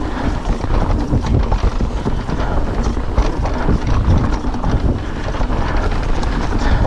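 Wind rushing over the microphone, with the rumble of tyres on a dirt trail and the steady rattle and knocks of a YT Decoy e-mountain bike descending fast over rough ground.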